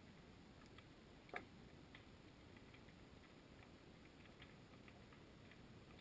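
Near silence underwater, heard through a GoPro Hero 2's waterproof housing: a faint low rumble with scattered small ticks and one sharper click about a second and a half in.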